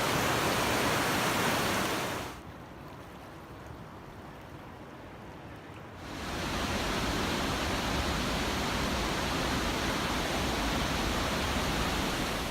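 Rushing whitewater of the McKenzie River and its waterfalls, a steady dense roar of falling water. It drops to a duller, quieter rush about two seconds in and comes back to full strength about six seconds in.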